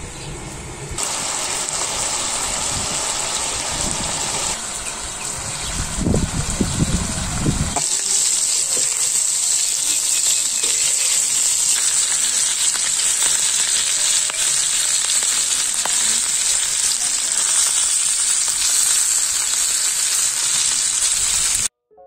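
Lamb steaks and cubed potatoes sizzling steadily in oil on a round flat iron griddle pan, after several seconds of a wood fire burning with low rumbles. The sizzle cuts off suddenly near the end, leaving a few faint piano notes.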